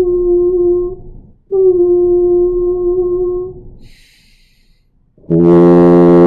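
A man's voice holds a steady note, stops, and holds the same note again for about two seconds. After a quick breath, a tuba sounds a loud, steady low note about five seconds in, matching the pitch of the sung note.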